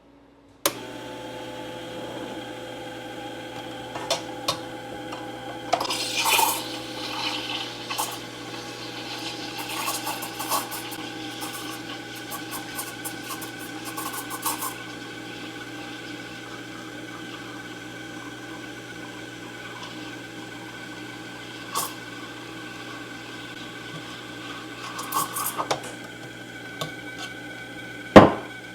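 Espresso machine pump running steadily while a shot pulls, a constant hum with a fixed tone, starting with a click just under a second in. Scattered clinks of cups and small hissing bursts sound over it, and a loud sharp click comes near the end.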